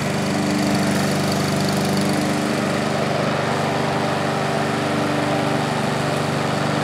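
Honda HRR216VKA self-propelled gas lawn mower's 160 cc single-cylinder engine running steadily under load as it cuts grass.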